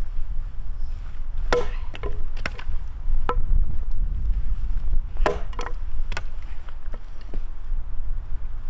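Firewood being chopped or split with an axe: a series of sharp, irregularly spaced strikes.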